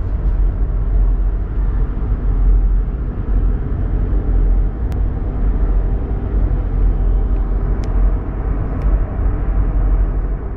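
Steady low rumble and hum of a ship's engines and machinery heard from inside the ship, with a few faint ticks.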